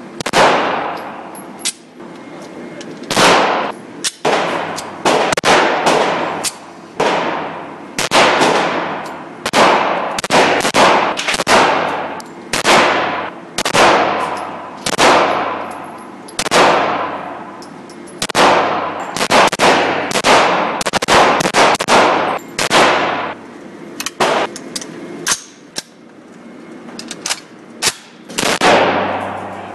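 Gunshots echoing in an indoor shooting range: irregular single shots and quicker strings, each a sharp crack followed by a ringing reverberation off the range walls, from a handgun and neighbouring lanes.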